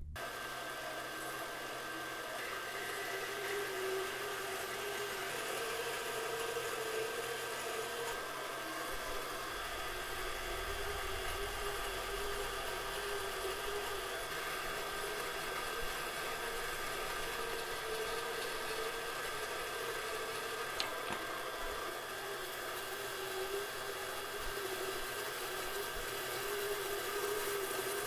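Band saw running steadily and cutting through blocks of hardwood: a constant whir with a thin high whine over it.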